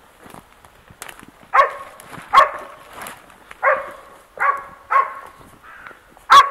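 A search and rescue dog barking six times, short sharp barks roughly a second apart starting about a second and a half in. This is a search dog's bark alert as it leads its handler back to the person it has found.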